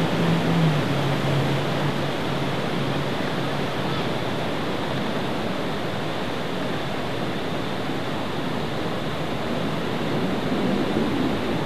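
Steady rush of fast-flowing turbulent white water. Under it, a personal watercraft's engine hums for the first few seconds, dropping in pitch under a second in and then fading away.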